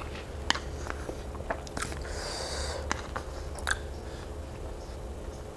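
Close-miked chewing of barbecued pork and rice, with scattered small sharp clicks and a brief hiss about two seconds in, over a steady low hum.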